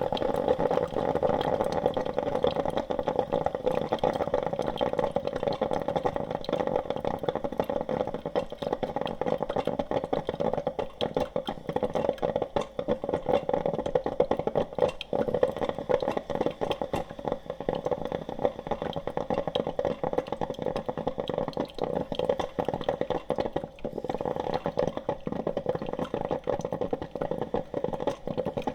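Coffee maker brewing: hot water bubbling and sputtering in a steady, dense crackle of small pops that never stops.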